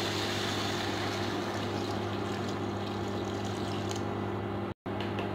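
Water poured from a jug into a pot of tomato curry, a steady pouring rush that fades out about four seconds in, over the constant low electrical hum of an induction cooktop. The sound cuts out completely for an instant near the end.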